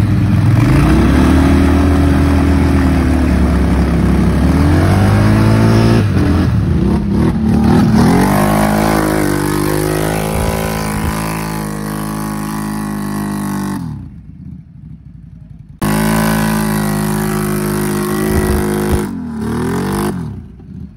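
ATV engine revving, its pitch climbing and falling several times. The engine sound drops away abruptly about fourteen seconds in and returns about two seconds later.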